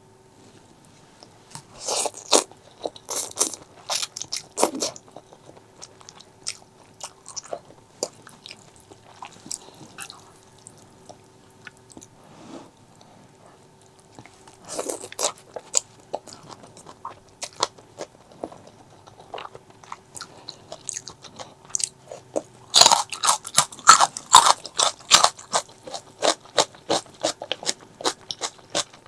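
Close-miked eating sounds: crunching and chewing in short irregular clusters, then rapid, louder crunching from about 23 seconds in.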